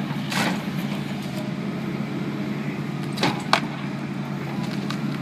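A steady low motor hum, with a short noisy burst about half a second in and two sharp knocks a little after three seconds.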